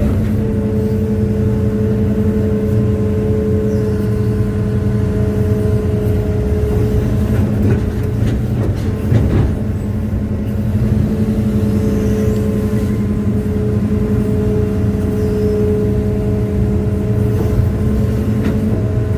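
Hitachi excavator's diesel engine running hard with a steady hydraulic whine, while the machine works bogged down in soft ground. The whine eases for a few seconds midway, when a few knocks are heard.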